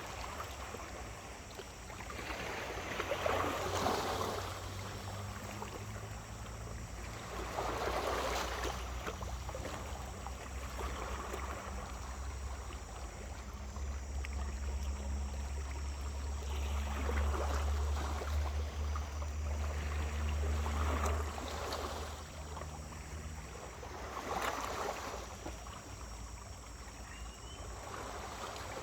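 Small waves washing onto a beach, one swell every few seconds. A low steady hum runs under them from a few seconds in until past twenty seconds.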